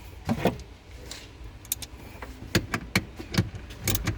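Irregular clicks and light metallic knocks from tools and parts being handled while the battery cable and terminals are worked on.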